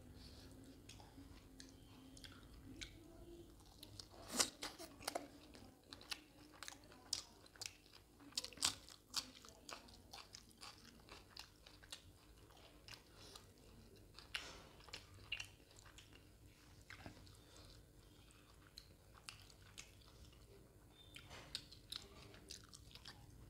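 Close-miked wet chewing and biting of spicy mutton boti curry with soaked roti: a string of sharp smacking clicks and squelches, thickest in the first half and sparser later.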